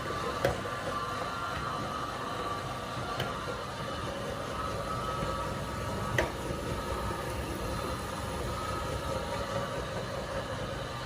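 Meat grinder running steadily with a constant motor hum, grinding polymer clay, with a few sharp clicks from the mechanism.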